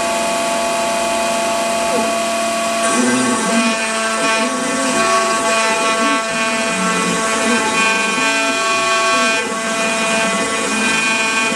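A home-built CNC router running: a steady motor whine with shifting lower tones that change pitch as the machine moves.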